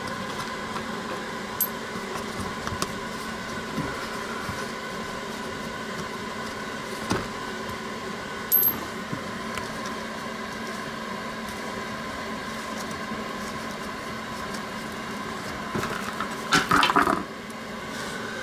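Steady hum of a Honeywell electric space heater running, with a few light clicks as the 10 mm bolts of a Lexus IS250's plastic engine undercover are turned by hand. Near the end a short clatter as the undercover comes off.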